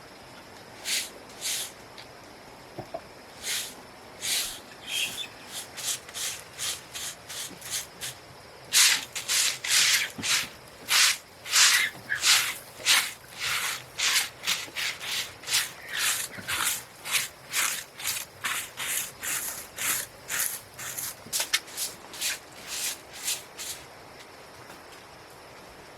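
Repeated scraping or rubbing strokes, a few at a time for the first nine seconds, then a faster, louder run of them that stops about two seconds before the end.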